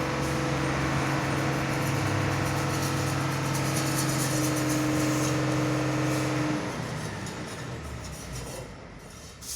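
Hino tronton truck's diesel engine running at a steady pitch, then dropping away and going quieter about six and a half seconds in.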